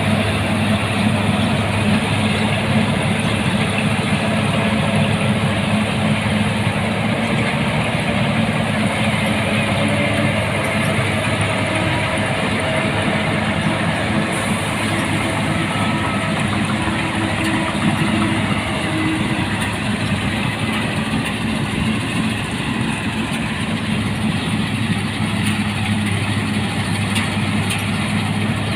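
Rice combine harvester running steadily, its engine and threshing machinery making a continuous loud drone with a constant low hum.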